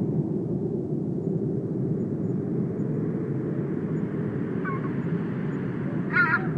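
Steady low rumble of outdoor ambience, with faint bird chirps about five seconds in and a short, louder bird call near the end.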